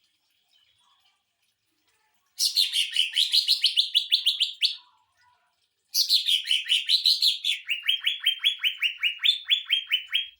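Cucak ijo (greater green leafbird) singing its 'sewing machine' rapid-fire song: two long runs of fast, evenly repeated notes, about eight a second, each run starting high and dropping, with a pause of about a second between them.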